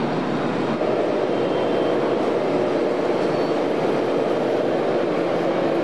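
Steady din of an indoor RC model-truck hall: a dense, even noise with no clear engine note or voices, stepping up slightly about a second in.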